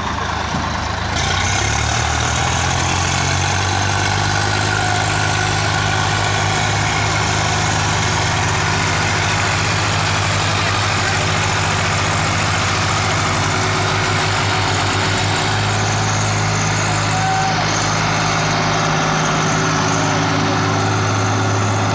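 Swaraj 855 FE tractor's three-cylinder diesel engine working hard under load, pulling a heavy trailer. It runs steady and loud, picking up sharply about a second in.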